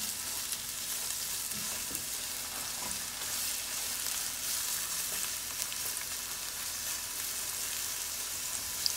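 Sliced onion and red bell pepper sizzling steadily in hot vegetable oil in a skillet, stirred with a spatula that scrapes lightly across the pan. A short sharp click just before the end.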